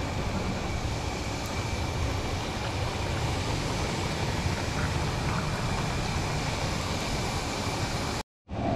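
Mutton pieces sizzling and steaming in a large steel wok as hot water is poured in, over the steady low rush of the gas flame beneath it. The sound cuts off abruptly near the end.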